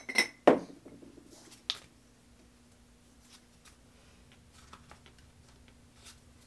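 Paper sticker sheets being handled and sorted on a wooden desk: a few sharp taps in the first second and a half, then light rustling and small ticks. A faint steady hum runs underneath.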